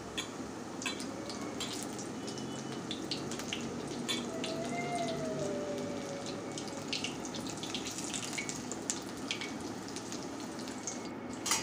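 Besan-battered eggplant slices deep-frying in hot oil in a steel kadhai: steady sizzling with scattered pops and crackles.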